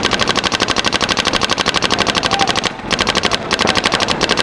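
Proto Reflex Rail paintball marker firing rapid strings of shots, about a dozen a second, broken by two short pauses in the second half.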